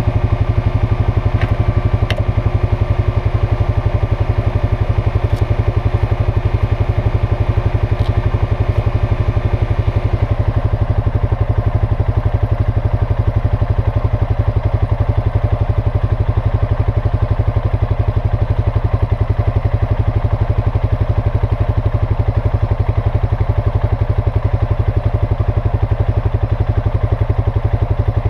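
ATV engine idling steadily, with a rapid even pulse; a faint higher hum in it fades out about ten seconds in.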